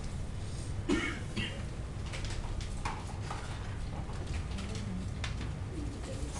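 Steady low background hum with scattered faint clicks, and a brief vocal noise from a person about a second in.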